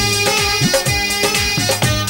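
Music with a steady beat: low drum hits that fall in pitch, over held tones.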